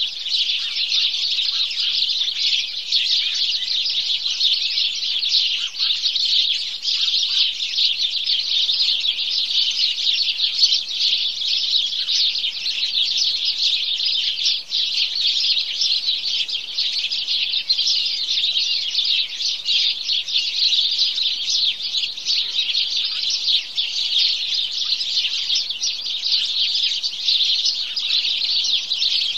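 A flock of house sparrows chirping, with many overlapping chirps in a dense, unbroken chatter.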